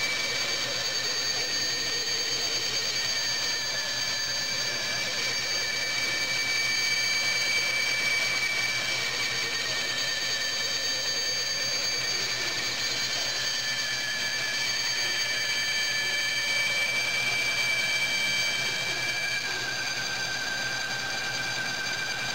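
Band saw running with a narrow 1/8-inch blade, cutting a circle in dense melamine-faced board as the workpiece is turned on a pivot circle-cutting sled. It is a steady high whine, with one tone wavering slowly in pitch as the feed changes.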